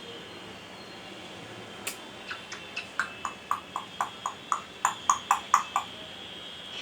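A quick run of sharp tongue clicks, about fifteen at roughly four a second, starting about two seconds in and growing louder before stopping near six seconds.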